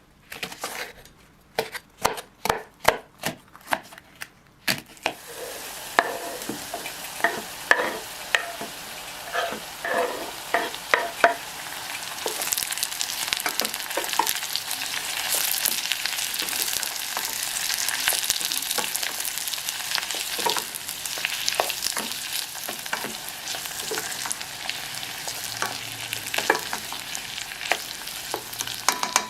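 For the first few seconds a knife chops on a board, about two strokes a second. Then food is added to hot oil in a pan and sizzles steadily, stirred with a utensil that clicks and scrapes against the pan.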